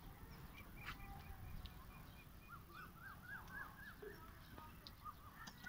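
Faint bird calls: short high chirps during the first couple of seconds, then a quick run of about seven rising-and-falling notes in the middle, over a low background rumble.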